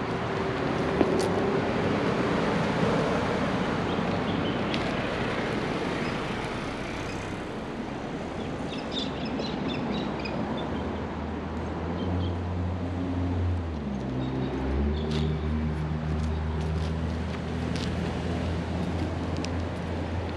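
Car-park ambience: a car engine running close by from about halfway through, its pitch shifting as it moves, over steady outdoor noise, with a few faint bird chirps.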